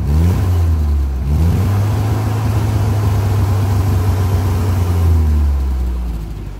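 Classic tractor's 1098cc A-series four-cylinder engine on new electronic ignition, revved up quickly twice, held at higher revs for a few seconds, then dropping back towards idle near the end. The exhaust is a little poppy, which the owner puts down to a part exhaust with only one silencer can.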